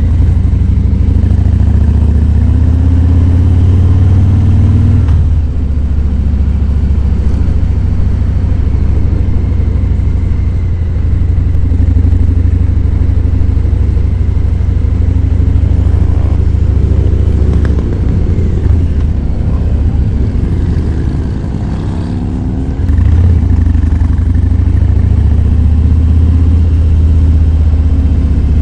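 Harley-Davidson Fat Boy 107's Milwaukee-Eight V-twin running under way, its low rumble climbing in pitch as it accelerates and dropping about five seconds in. It eases off for a moment past the twenty-second mark, then opens up again.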